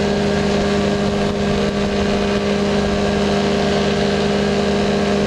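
Powered parachute's engine and propeller running steadily in cruise flight: a constant drone with an even rush of air over it.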